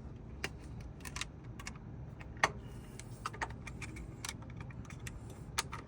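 Scattered light metallic clicks and taps of small metal parts and a hand tool being handled, with one sharper click about two and a half seconds in.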